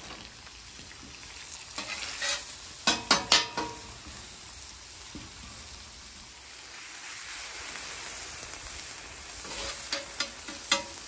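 Pepperoni slices and chopped vegetables sizzling steadily on a hot flat-top griddle, with a metal spatula scraping and clacking against the steel plate in a quick cluster about three seconds in and again a few times near the end.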